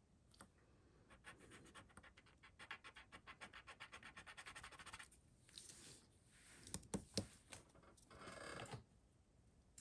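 Faint, rapid back-and-forth scratching of a piece of jewelry against a testing stone, many even strokes a second for about four seconds. This is a scratch test, leaving a streak to check with acid whether the metal is sterling silver. Near the end there are two sharp clicks and a short rub.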